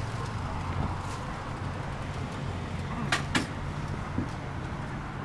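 Street ambience: a steady low hum of road traffic engines, with two sharp clicks a third of a second apart about three seconds in.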